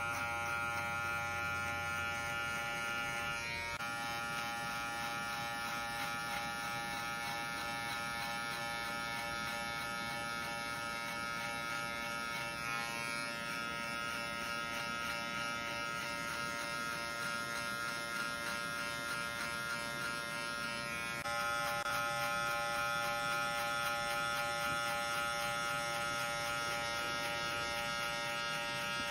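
White cordless electric hair clipper with a comb guard running with a steady buzz as it cuts short hair up the back of the neck. Its tone shifts slightly a few seconds in and again about three-quarters of the way through.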